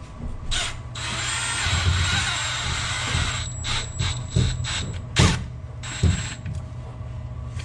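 Power drill running for about two and a half seconds with a steady high whine, then three sharp knocks.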